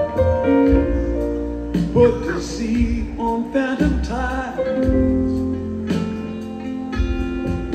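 Live rock band playing an instrumental passage: electric guitar, keyboards and drums, with held notes and a few wavering pitch bends in the middle.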